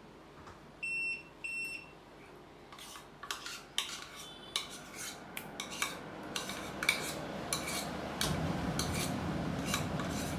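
Two short electronic beeps about a second in from the range hood's controls, then a small plastic bowl knocking and scraping against a non-stick frying pan as ghee is tipped and scraped out of it, with a steady low rushing noise rising under the knocks near the end.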